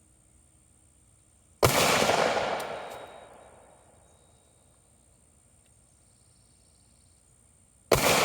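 Two shots from a .40-caliber Glock pistol, about six seconds apart, the second near the end; each is a sharp crack followed by a long fading echo.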